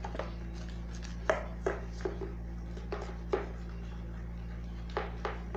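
Irregular light clicks and knocks of a utensil and container being handled while making slime, about eight in all, over a steady low hum.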